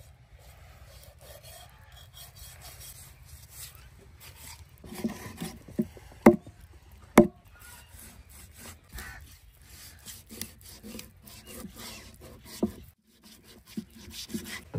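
Knife and cleaver cutting a large fish on a wooden chopping stump: repeated scraping and rasping as the blade works through skin and flesh, with two sharp chops into the wood block about six and seven seconds in.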